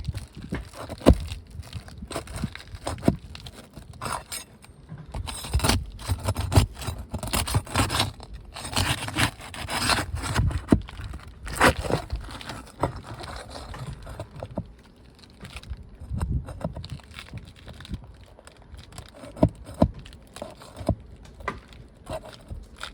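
Metal pry bar scraping and clicking against a roofing nail and the 3-tab asphalt shingles as a stubborn nail is worked out, in irregular strokes with sharp metallic knocks. The nail comes slowly.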